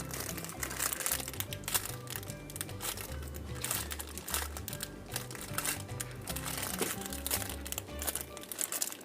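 Plastic packaging crinkling irregularly as a squishy toy is handled and squeezed through it, over background music with a low bass line.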